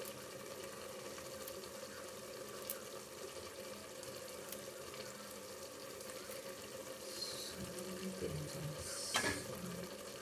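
Steady hiss of a pot of spicy potato stew simmering on the stove, with one short knock about nine seconds in.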